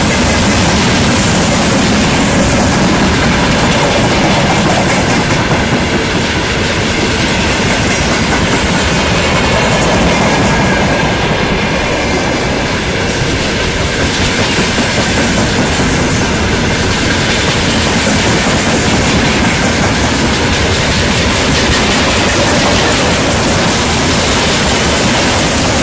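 Freight wagons of a long freight train rolling past close by. Their steel wheels run on the rails, loud and steady, with the clack of wheelsets over the rail joints.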